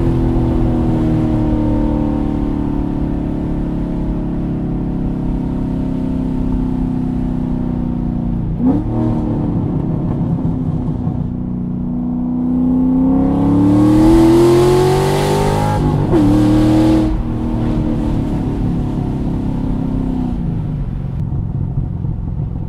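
Straight-piped 2013 Corvette Grand Sport C6 V8 with long-tube headers, driving. The exhaust holds a steady note, then its pitch climbs under acceleration from about twelve seconds in before dropping with a gear change about three seconds later.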